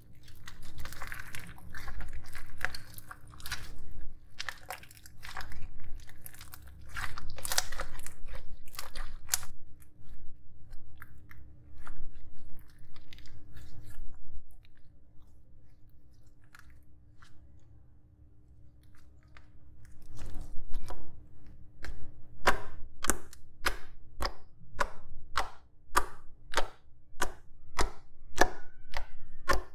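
Homemade glue-free, borax-free slime being stretched and squished by hand, giving irregular sticky, wet crackles and pops. After a quieter spell midway, it is pressed and patted against a tabletop in a quick, even series of sticky slaps, about 2.5 a second.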